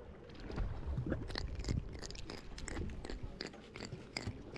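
A grunt held in the hand, grunting: an irregular run of crunching clicks made as it grinds its throat teeth.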